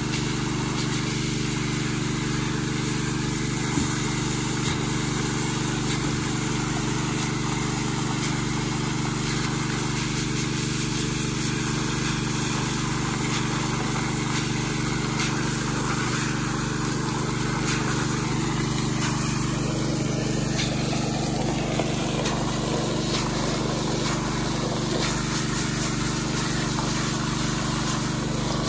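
Small Robin petrol engine driving a water pump, running steadily at constant speed, with the hiss of the pump's water jet striking mud.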